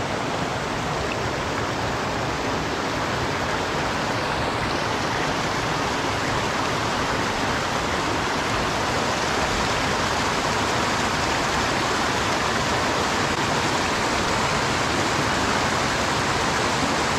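Mountain stream rushing over rocks, with water pouring over a low concrete check dam just upstream: a steady, unbroken rush of water.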